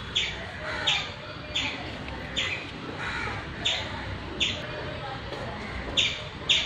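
A bird calling over and over in short notes, roughly one every second with a couple of longer gaps.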